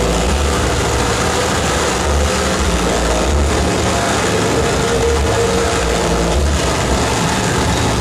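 Harsh noise played live through a rig of effects pedals and a mixer: a dense, steady wall of distorted noise across the whole range, with an uneven pulsing low rumble and a held mid tone underneath.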